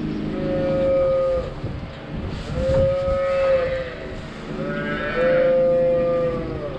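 A calf mooing three times, long drawn-out calls with a fairly high, steady pitch that bends down at the end of each.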